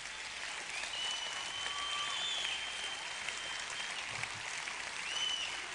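Audience applauding, with a few high whistles over the clapping.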